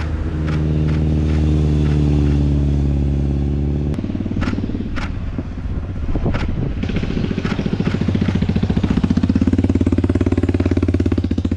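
Motorcycle engines on a curving road: one runs at a steady pitch and cuts off abruptly about four seconds in, then after a few sharp clicks another builds up and runs loud with a fast, pulsing beat near the end.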